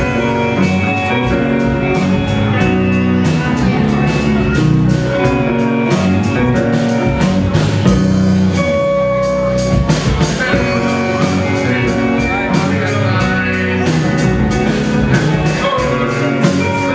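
Live rock band playing a song on electric guitars, keyboard and drum kit, with a steady drum beat.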